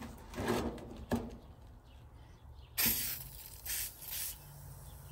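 Aerosol battery cleaner sprayed onto a corroded battery cable terminal in three short hisses, the first and longest starting about halfway through. A few faint handling knocks come before it.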